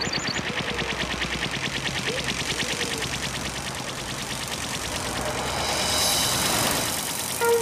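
A small motor running with a rapid, even chugging, followed near the end by a rising whoosh.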